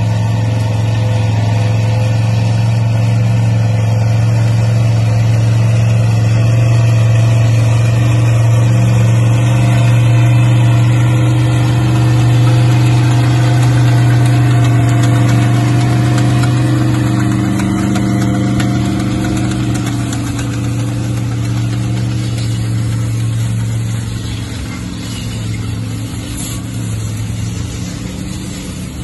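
Linn half-track tractor's engine running steadily as it hauls a train of freight sleighs past. The engine is loudest midway and fades a little as the tractor moves on.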